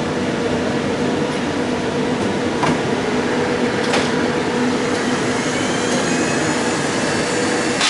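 Steady drone of the running 1959 IBM 1401 mainframe and its peripherals: cooling fans and blowers with a low, even hum, broken by a few sharp clicks.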